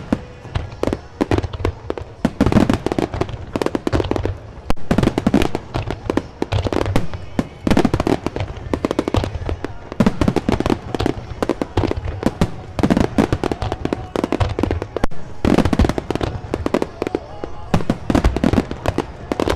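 Aerial fireworks bursting in rapid succession, a dense barrage of deep booms and sharp cracks many times a second.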